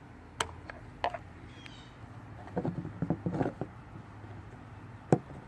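Scattered light clicks and small knocks of hands working on a Poulan Pro trimmer's carburetor, unhooking the throttle linkage and fuel lines to remove it, with a sharper click near the end.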